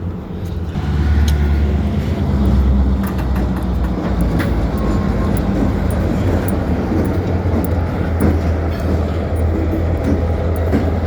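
Diesel engine of a Norfolk Southern EMD GP switcher locomotive rumbling steadily close by, growing louder about a second in, with a few sharp clicks over the top.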